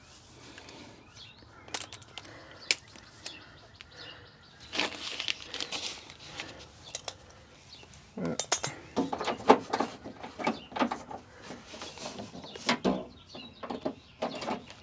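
Scattered small clicks and clinks of hand work on a car door's lock mechanism, with birds chirping.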